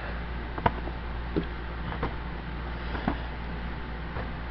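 Light clicks and taps of plastic blister-pack toy cards being handled and set down, a handful spaced about a second apart, the sharpest under a second in, over a steady low hum.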